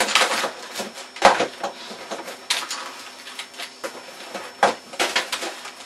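Computer keyboard being hammered fast and unevenly, a clatter of key clicks with a few harder bangs, one about a second in and another near five seconds.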